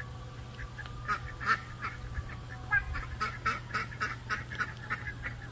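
Ducks calling from a hen and her ducklings: a quick run of short, repeated calls, about three or four a second, starting about a second in.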